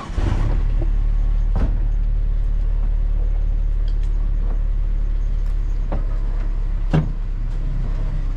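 A car engine starts up and runs with a loud, steady low drone, with a few light clicks and a knock about seven seconds in.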